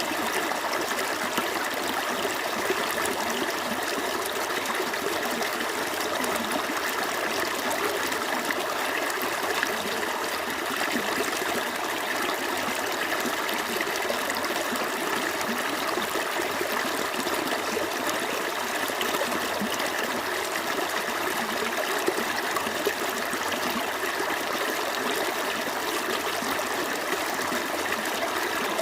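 Small stream flowing steadily over rocks, an even rushing and trickling of running water.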